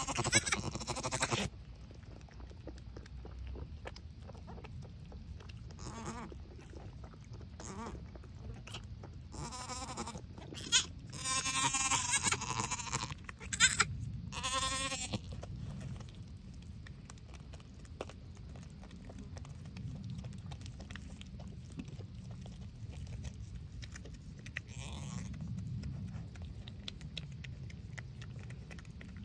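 Dairy goats bleating: a call right at the start, a run of bleats between about ten and fifteen seconds in that includes one long bleat, and a faint bleat near the end. A couple of sharp clicks come in the middle.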